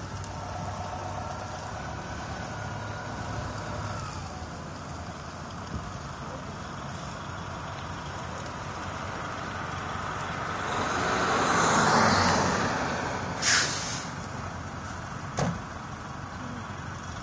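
Motor vehicle noise: a steady engine hum, then a swell of road noise that rises and falls as a vehicle passes. Near the end come a short, sharp hiss and a single knock.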